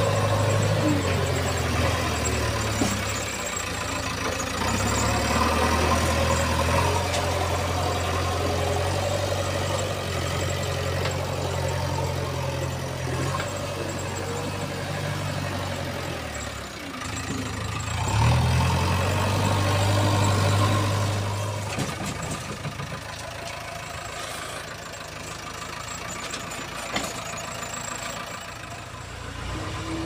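Diesel engine of a JCB 3DX backhoe loader running while the loader arm lifts and swings a bucket of stone chips. Its pitch steps up and down every few seconds, is loudest for a few seconds past the middle, then settles lower and quieter near the end.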